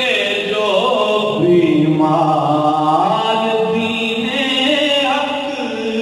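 A man singing a manqabat, a devotional praise poem, solo and unaccompanied into a microphone, holding long notes that rise and fall slowly.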